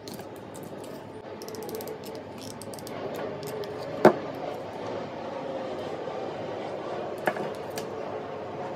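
Wooden craft sticks clicking and tapping against each other and on a wooden tabletop as they are handled. There is a sharp knock about four seconds in and a smaller one near the end.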